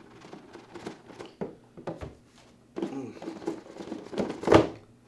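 Packaging being handled and opened by hand: crinkling, scraping and light knocks of plastic wrap and cardboard from an iPad Pro's retail box. The handling grows busier in the second half, with the loudest scrape about four and a half seconds in.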